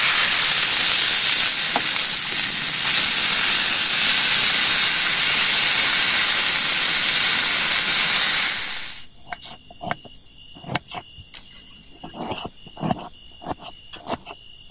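Food frying in hot oil, a loud steady sizzle. It cuts off abruptly about nine seconds in, leaving a quieter bed of night insects trilling, with scattered small clicks and knocks.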